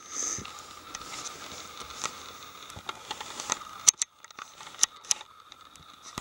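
Scattered crunches, clicks and scrapes of footsteps and camera handling on a snowy forest floor of twigs and leaf litter, over a steady faint background hiss that drops away briefly about four seconds in.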